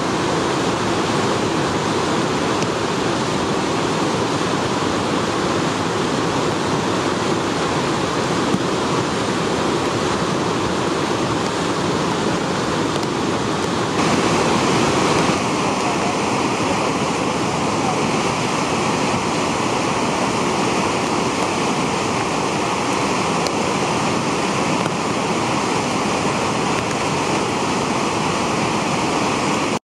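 Flood-swollen river pouring over falls and a dam: a loud, steady rush of churning whitewater. Its tone shifts slightly about halfway through.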